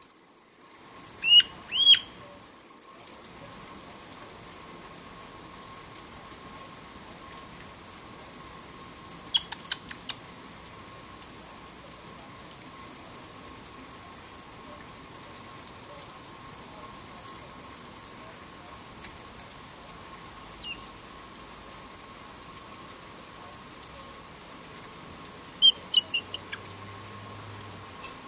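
Black-headed caique giving short, sharp calls: two loud rising calls about a second apart near the start, a quick run of chirps about ten seconds in, and another burst of chirps near the end, with long quiet gaps between. A faint steady hum sits underneath.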